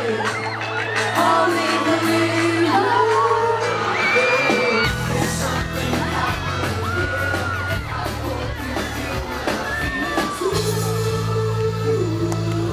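A pop band playing live through a PA, with bass and backing music under lead singing, and the crowd whooping and singing along.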